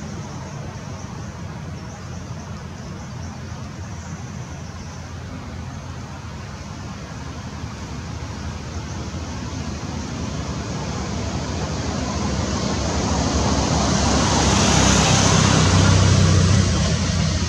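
Road traffic noise, a steady rush with a low engine hum, swelling as a vehicle passes about fifteen seconds in and then easing off.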